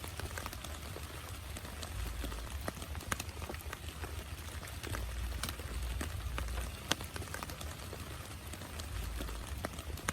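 Heavy rain falling: a steady hiss with many sharp single drops striking a surface close by, over a low rumble that swells and eases.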